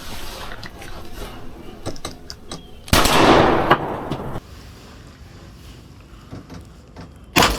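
Turkey-hunting shotgun fired about three seconds in, a sudden loud blast with a rolling tail lasting over a second: the shot that kills the tom. A second short, sharp bang follows near the end.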